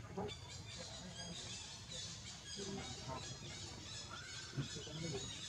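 Faint high-pitched chirps and squeaks scattered over steady outdoor background noise, with a brief squeal about four seconds in.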